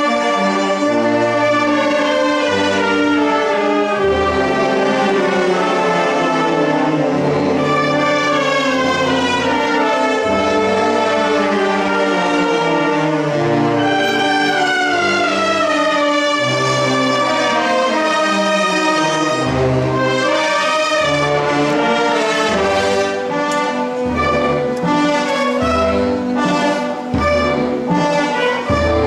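Brass band playing a funeral march, with sustained melody notes over low bass notes. Short drum strokes come through near the end.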